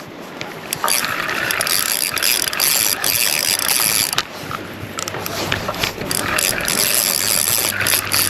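Fishing reel ratcheting in rapid clicks as a heavy fish, a freshwater eel, is fought and wound in.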